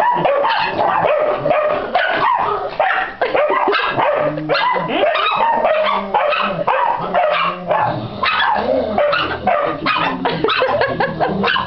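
Dogs barking and yapping almost without pause, a pit bull and Yorkshire terriers squabbling with each other.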